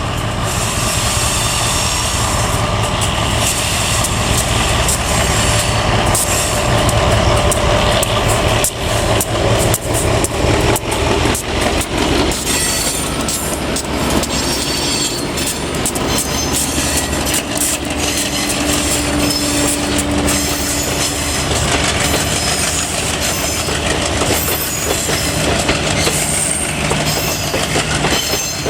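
Passenger train rolling through the station, its coaches' wheels clattering rapidly over the rail joints under a steady rumble, with some wheel squeal.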